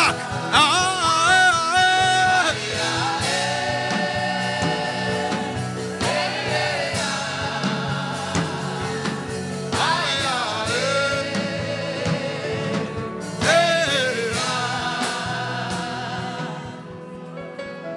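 Gospel worship singing over instrumental accompaniment: long held sung notes with vibrato in several phrases, fading out near the end.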